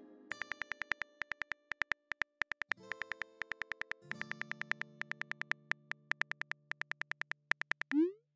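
Simulated phone-keyboard key clicks, rapid and evenly spaced as a message is typed out, over soft synth background music chords. Near the end comes a short rising swoosh, the message-sent sound.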